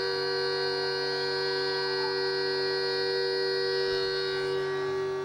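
Electric guitar feedback from the stage amplifiers: a steady, sustained drone of several held tones, left ringing through the amp stacks.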